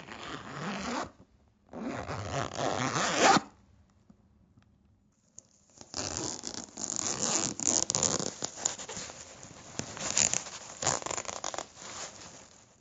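A zipper being pulled: two quick zips in the first few seconds, then, after a short pause, a longer run of zipping of about six seconds in many uneven strokes.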